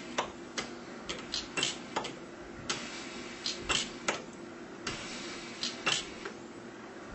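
Pulse welder firing a series of sharp snaps at irregular intervals, a few a second, over a steady low hum.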